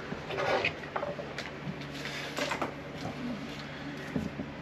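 Objects being handled and moved about, as when searching for a multimeter: small clatters, knocks and rustles over a steady low hum.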